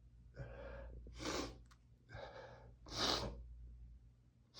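A man breathing hard, catching his breath after a sneezing fit: two pairs of breaths, each a softer breath followed by a sharper, hissing one, about two seconds apart.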